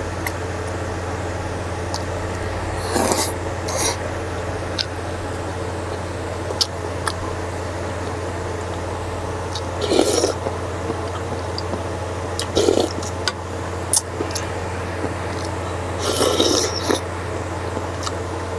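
Slurping cold jjamppong broth from a wooden spoon, four short slurps spread out, with light clicks and scrapes of the spoon against a stainless steel saucepan. A steady low hum runs underneath.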